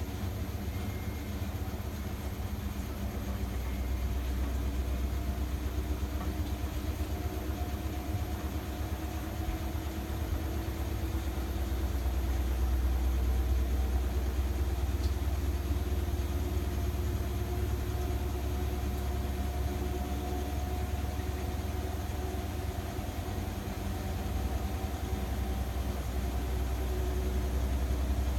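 Front-loading washing machine running on its final rinse and spin programme: a steady low hum with a motor whine that slowly rises in pitch.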